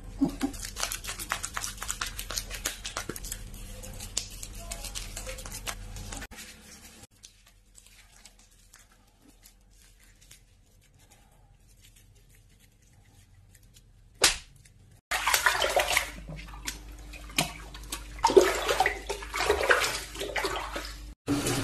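Wet, crackling squelch of herbal mud being worked into a cat's fur by hand, then a quiet stretch broken by one sudden sharp sound. Near the end, water runs and splashes as the mud is rinsed off the cat in a tub.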